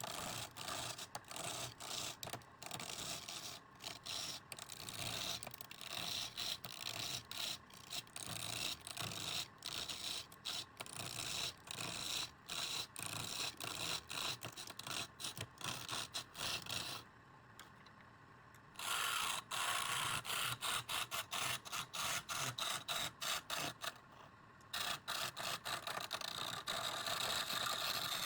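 A turning tool scraping and cutting wood on a lathe, a dry rasping sound broken by many short breaks, with two brief lulls in the second half.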